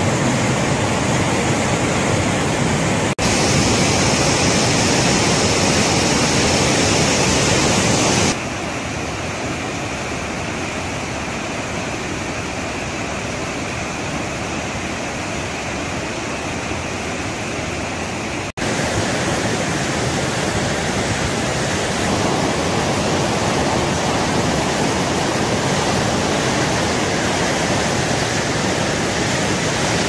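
The Penna River in flood, its heavy flow rushing past in a loud, steady wash of water noise. The sound changes abruptly in level and tone about 3, 8 and 18 seconds in.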